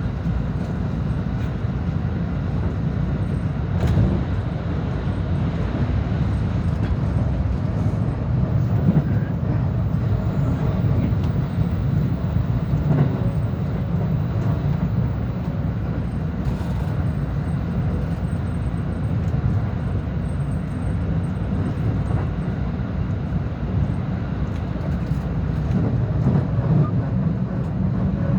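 Running noise of a rapid commuter train heard from inside the carriage: a steady low rumble of wheels on rail, with a few faint clicks.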